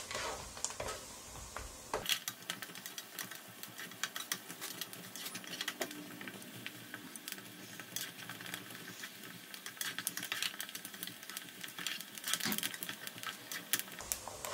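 Green chillies, ginger and garlic frying in hot oil in a non-stick pot: a steady sizzle with dense, rapid crackling, and a wooden spatula stirring through the pan.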